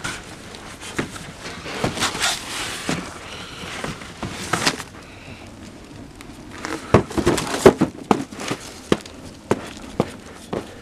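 Fire in a metal burn drum crackling, with sharp pops and snaps, a run of them about seven to nine seconds in.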